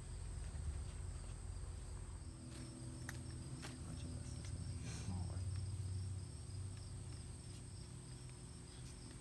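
Insects trilling steadily in a high, thin tone, joined a couple of seconds in by a second, pulsing trill a little lower, over a low outdoor rumble and a few faint clicks.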